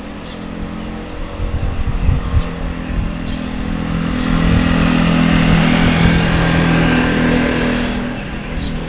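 A motor vehicle's engine approaching and passing, growing louder to a peak about five to seven seconds in, then fading away.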